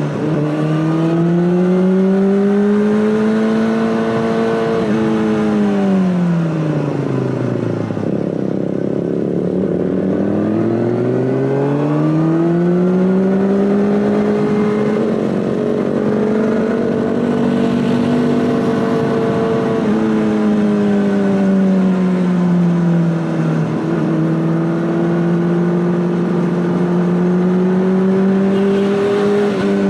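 Honda CBR600RR inline-four engine running through an Akrapovic exhaust. Its revs rise and fall smoothly over several seconds at a time, dropping lowest about eight to ten seconds in and then climbing again.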